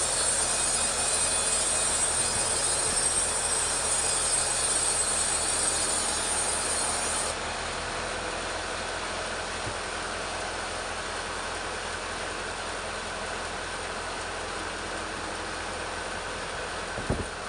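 Petrol chainsaw ripping lengthwise through a teak log, running steadily under load; about seven seconds in the sound drops to a lower, duller running. A short knock near the end.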